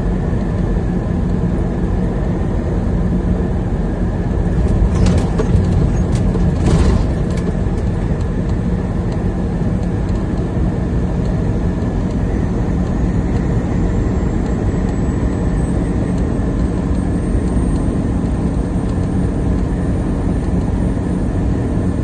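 Steady drone of a truck on the move, engine and road noise, with a few short clicks about five to seven seconds in.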